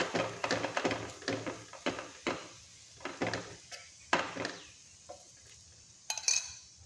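Steel spoon scraping and clinking on a hot tawa while spreading ghee over a paratha: a quick run of scrapes that thins out after about four seconds, with a couple of faint clicks near the end.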